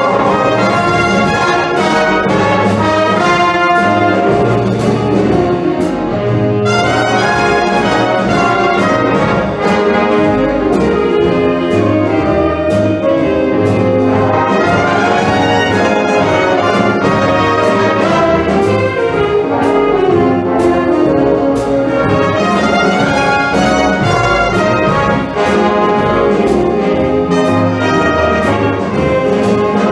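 Wind band with trumpets and trombones playing music over a steady beat.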